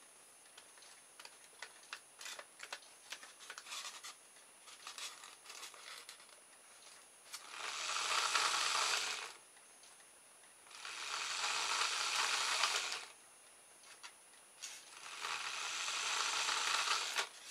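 Three bursts of rubbing, each about two seconds long, from hands working on a small plastic motor kit. Light clicks and handling noises come before and between them.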